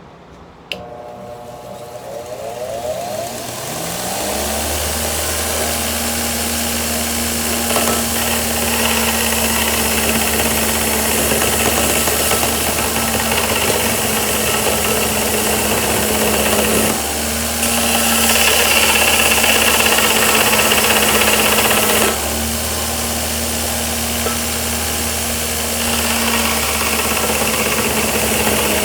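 DeWalt DW578 bench grinder switched on with a click, spinning up with a rising whine and settling into a steady motor hum. It drives a 2x42 belt grinder attachment, and steel C-channel is then ground against the running belt: a rasping grinding noise that swells and drops with each pass.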